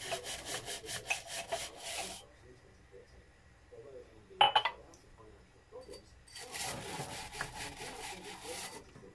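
Stiff plastic bristles of a suction-cup glass-washing brush scrubbing inside a drinking glass as it is worked up and down on them, in two bouts of rapid rubbing strokes. The first bout ends about two seconds in and the second starts about six and a half seconds in, with a brief knock of glass in between.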